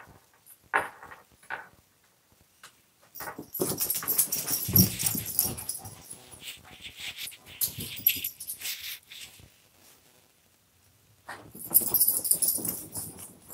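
Shih Tzus whimpering and yipping at play, in short bursts. In the middle comes a long stretch of loud rustling and knocking as the phone is carried down carpeted stairs, with more rustling and dog noises near the end.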